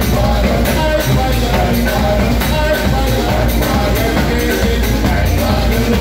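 Live band playing: electric bass, snare drum with cymbals and a large bass drum beaten on a stand, with a man singing into a microphone.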